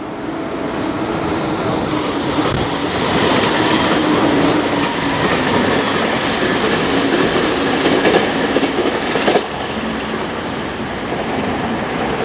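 JR Kyushu 813 series electric train running close past, with the steady noise of wheels on rail. The sound builds over the first few seconds, stays loud through the middle, and drops off sharply about nine and a half seconds in as the last car goes by, leaving fainter train noise.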